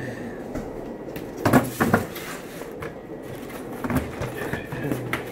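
Knocks and bumps of shipping boxes being handled, with two sharp knocks about one and a half and two seconds in and lighter ones near the end.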